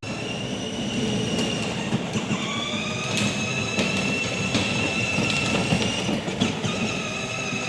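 Farm machinery running with a steady high-pitched squeal over a dense rattling clatter, broken by a few sharp clicks. The squeal is typical of a broken bearing.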